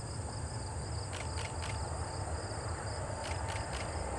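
Steady high-pitched insect chorus, crickets, in several shrill bands, with a few faint clicks, over a low rumble.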